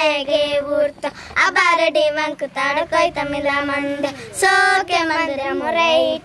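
Children singing a song in the Koya language, in short phrases of held and sliding notes with brief breaks between them.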